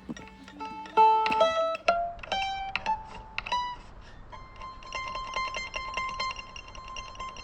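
Background music: a plucked-string instrument playing a run of single notes, then one long held note from about four seconds in.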